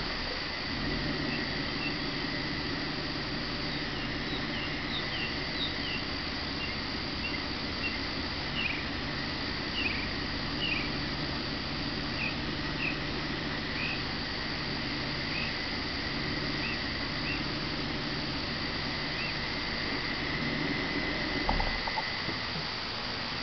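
Steady evening insect trilling with scattered short high chirps, over the low steady hum of the Buick Park Avenue's idling engine. The hum stops with a brief knock near the end, as the car is switched off.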